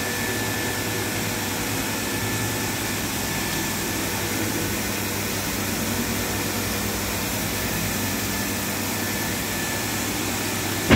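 Steady machine hum and hiss of a running reverse-osmosis water purification plant, its pump running without change.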